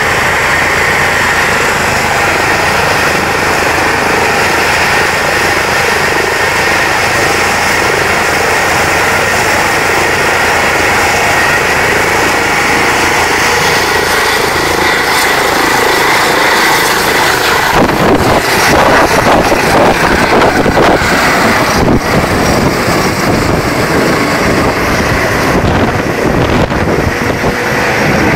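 Eurocopter EC135 rescue helicopter's twin turbines and rotor running at take-off power, with a steady high whine. About eighteen seconds in it lifts off: the sound grows louder and rougher as rotor wash buffets the microphone and the helicopter climbs away overhead.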